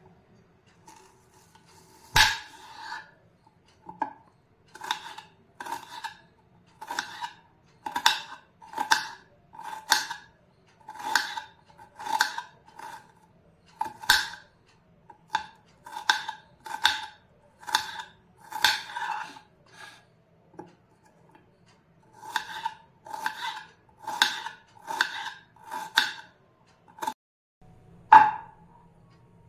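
Kitchen knife slicing a small red onion on a round wooden chopping board: a steady run of crisp knocks as the blade cuts through and taps the board, a little more than one a second, with a short pause about two-thirds of the way through. Near the end a small bowl is set down on the board with one louder knock.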